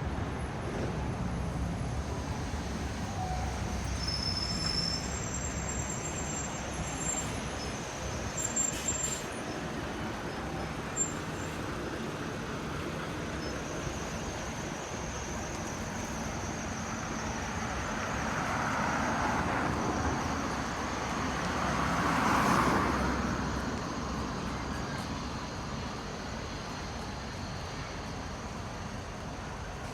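City street traffic: a steady hum of road vehicles, with one vehicle passing close, swelling to a peak about two-thirds of the way through and then fading. A few short sharp clicks about a third of the way in.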